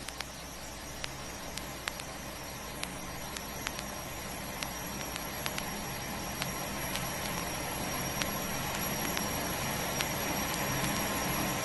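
A train approaching, its rumble building slowly and steadily, with the clicks of vinyl surface noise scattered through it.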